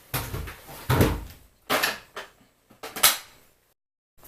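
A handful of sharp knocks and clatters as small mini-lathe parts are picked up and set down on a workbench, then a sudden drop to dead silence near the end.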